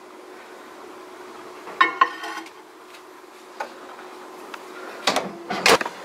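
A spoon and a small glass bowl clinking: one ringing clink about two seconds in, a light tick later, and a few quick knocks near the end.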